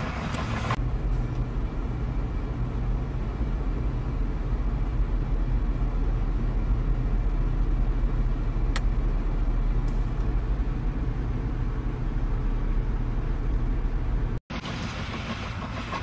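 Steady low rumble of a motor vehicle's engine running. It cuts off abruptly near the end.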